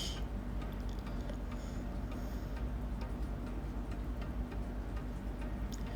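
Faint, regular ticking over a steady low hum.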